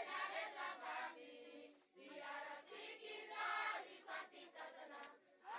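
A group of children singing together in chorus, in short phrases.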